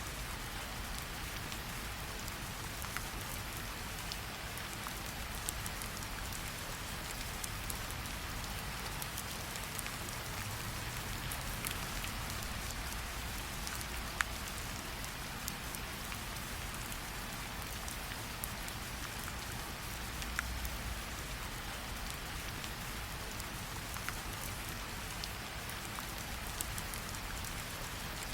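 Steady rain falling, with scattered sharp crackles and pops of a campfire.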